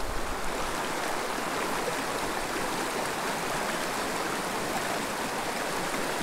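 Small mountain creek running over rocks: a steady, even rush of flowing water.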